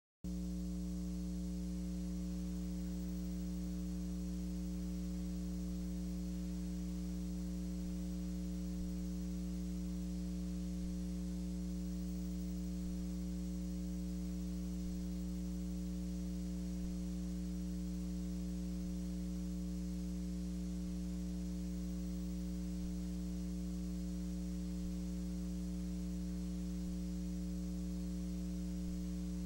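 Steady electrical mains hum with several overtones, unchanging throughout. It is the hum of the tape playback and transfer equipment on an otherwise silent film soundtrack.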